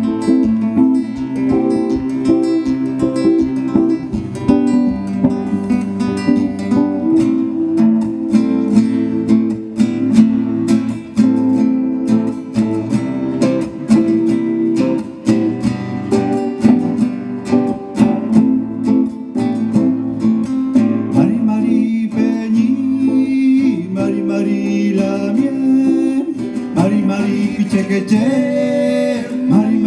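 Acoustic guitar strumming chords in a steady rhythm, joined by an electric guitar, as a live song begins; a singing voice comes in at about twenty seconds in.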